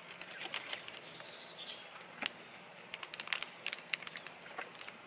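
Scissors snipping open a plastic fly-trap bait pouch, then the pouch crinkling as it is handled: scattered soft clicks and rustles, with a sharper click a little past two seconds in.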